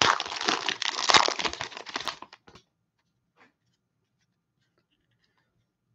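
Trading-card cello pack wrapper crinkling and tearing as it is ripped open by hand, stopping about two and a half seconds in.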